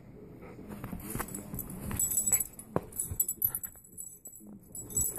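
Miniature Pinscher tugging and shaking a toy ball in a person's hand, making jingling and rattling with a few sharp knocks, loudest two to three seconds in.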